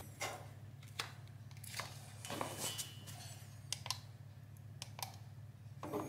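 Small plastic clicks and rustles, about ten scattered over the stretch, as plug-in power adapters and a cord are pushed together and the white Sonoff Basic plastic module is handled, over a low steady hum.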